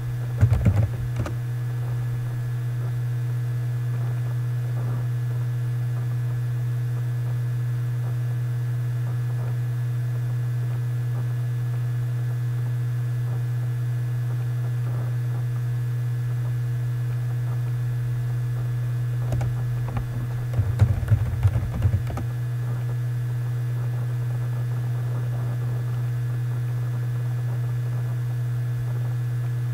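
Computer keyboard typing in two short bursts of key clicks, about half a second in and again around twenty seconds in, over a steady low electrical hum.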